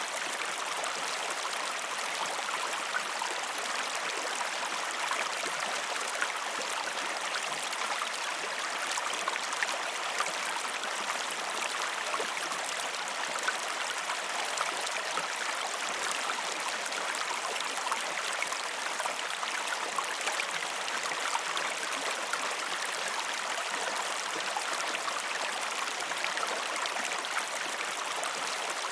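Steady rushing of a river or stream over rocks, with small splashes and gurgles throughout.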